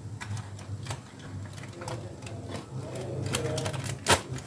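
Aluminium foil crinkling and crackling in short clicks as a foil packet of cooked chicken is pulled open, with a sharp click or clink about four seconds in, over a low steady hum.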